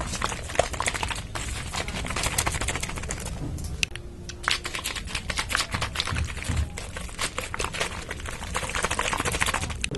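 Rapid, irregular clicking and tapping, with a brief lull about four seconds in; it cuts off abruptly near the end.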